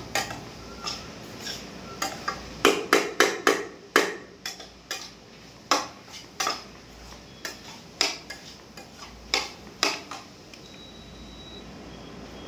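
Metal spoon stirring in a small kadai, clinking and scraping against the pan in irregular strokes, with a busy run of knocks a few seconds in.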